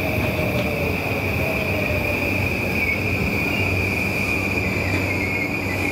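JR East E235 series Yamanote Line train rolling slowly along the platform: a steady rumble of wheels and running gear under a continuous high-pitched squeal, with a fainter motor whine falling in pitch over the first few seconds.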